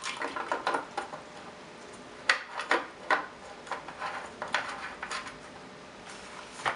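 The tethered plastic fuel and bar-oil caps on a Dolmar PS-32 chainsaw being popped out and handled, giving irregular sharp plastic clicks and taps. A quick cluster comes in the first second, then single clicks at about half-second spacing.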